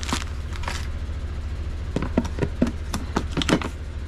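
Light clicks and taps of hard plastic being handled: bagged medals and a card picked up off a plastic dome food cover. A couple of taps come at the start, then a quick run of about eight clicks in the second half.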